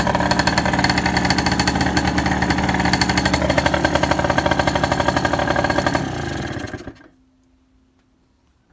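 Rieju RS1 Evolution's two-stroke engine running steadily with a fast, even pulse. It is switched off about six seconds in and dies away within a second.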